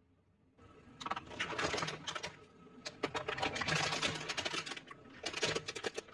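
Hard plastic cracking and crunching under a rolling car tyre, a dense run of rapid snapping clicks that starts about half a second in and dips briefly twice.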